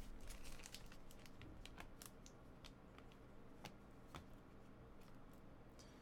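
Faint, scattered clicks and ticks of trading cards being handled and sorted by hand.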